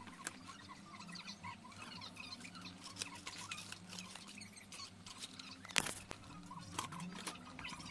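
Small clicks and taps of tweezers and tools being handled at a soldering bench, with one sharper click about six seconds in, over a low steady hum and faint squeaky chirps.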